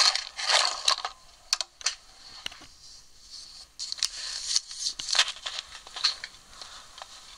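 Scattered light clicks and short rustling scrapes, the loudest rustle in the first second, with no lathe motor running.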